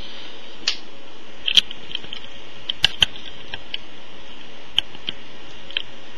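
Scattered light clicks and taps from small objects being handled, about ten of them irregularly spaced, the sharpest a little over a second and a half in and a pair near three seconds, over a steady hiss.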